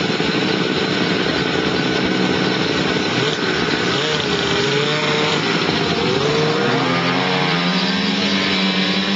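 Snowmobile engine running loud, its pitch wavering as it is revved, then climbing steadily in the last few seconds as the sled pulls away.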